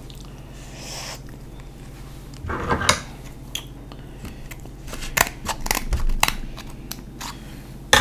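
Cooked seafood shell being peeled and broken apart by hand: scattered crackles and sharp clicks of shell, in a few clusters, with the loudest crack at the very end.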